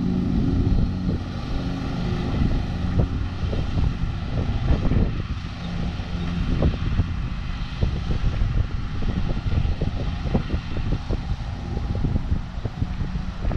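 John Deere LX176 riding lawn mower engine running steadily at a distance. Wind buffets the microphone with gusty rumbling and crackles that grow stronger after the first second or two.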